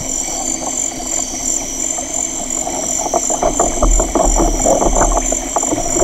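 Amazon rainforest field recording: a steady high-pitched drone throughout, and from about halfway a dense crackling of short clicks over a low rumble.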